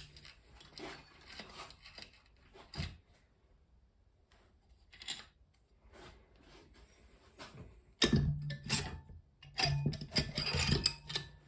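Hands working on the top end of a Suzuki DR750 engine while the cylinder is pulled off: scattered metal clicks, knocks and scraping. The sounds turn louder and busier about eight seconds in.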